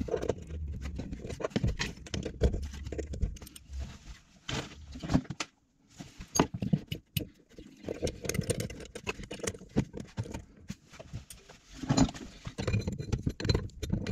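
Irregular small metallic clicks and knocks from a plumbing fitting under a basin being screwed on and tightened by hand, with a brief pause midway and a denser run of clicks near the end.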